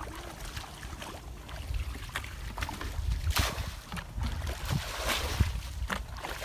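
Water splashing in a series of sloshes as a plastic bucket scoops muddy water and flings it out, bailing a shallow pond; the splashes come louder and closer together from about three seconds in.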